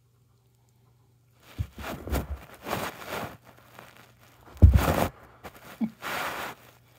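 A dog chewing and mouthing a small rubber ball, in irregular bursts of gnawing noise starting about a second and a half in, with a heavy thump about two-thirds of the way through.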